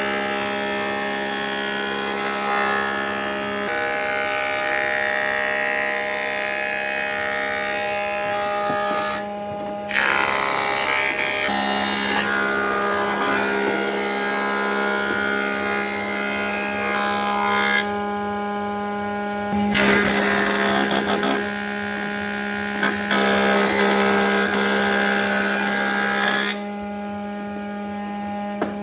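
An electric woodworking power tool running with a steady motor hum, working wood in loud passes that start and stop every few seconds.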